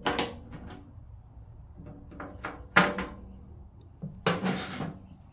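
Bolts being fitted and tightened on a furnace blower's motor bracket and fan housing: a series of short scrapes and knocks, the longest about four seconds in.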